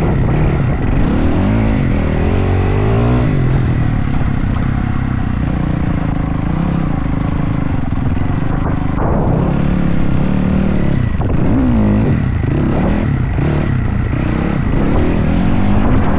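Dirt bike engine revving, its pitch rising and falling over and over. It holds a steadier pitch for a few seconds in the middle, then rises and falls quickly again.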